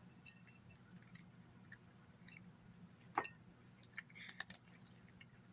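Domestic cat crunching dry chicken-and-egg kibble: faint, irregular sharp crunches, the loudest about three seconds in, over a steady low hum.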